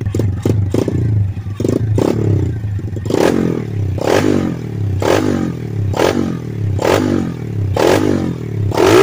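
Apollo 125cc pit bike's single-cylinder four-stroke engine blipped on the throttle. It runs lightly at first, then revs up and falls back about once a second from about three seconds in, the last rev near the end the loudest. The idle is a little rich.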